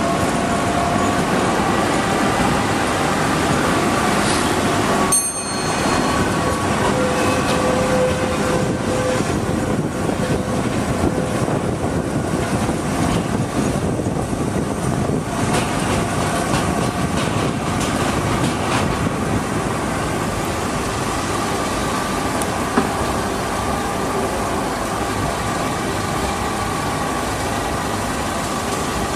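Trieste–Opicina tram running on its track, heard from inside the car: a steady rumble of wheels on rail with thin whining tones held over it, and a short dip in the sound about five seconds in.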